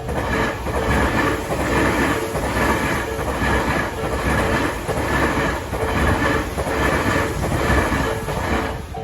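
A train passing over a Japanese railway level crossing: a loud, steady rolling rumble with wheel clatter over the rail. The crossing's warning bell keeps ringing faintly underneath and comes back clearly as the train clears.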